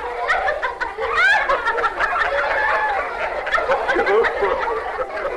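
A crowd of voices laughing and cackling together, many overlapping at once: the market's jeering laughter in a puppet play.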